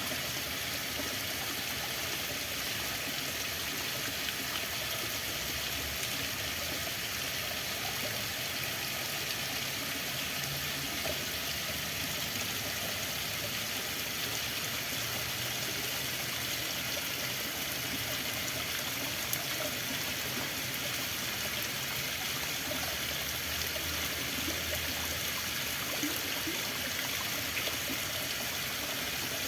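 Flowing water running steadily: an even hiss with light trickling and a few small splashes.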